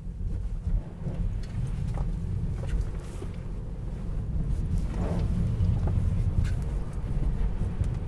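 Steady low rumble of tyres and road heard inside a Tesla Model 3 accelerating hard on wet asphalt, growing a little louder after a few seconds, with a few faint clicks.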